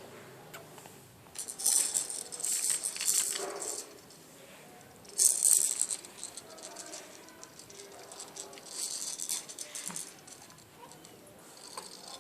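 Something rattling, shaken in four short bursts of bright, hissy clatter with quiet gaps between them.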